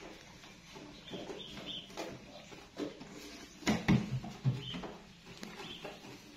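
Young monkeys clambering on a plastic toy seesaw: a few knocks of the plastic, loudest a little under four seconds in, with faint short high squeaks from the monkeys.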